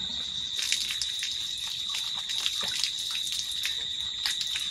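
Water running and splashing at an outdoor tap, with scattered drips and splashes, over a steady high-pitched insect drone.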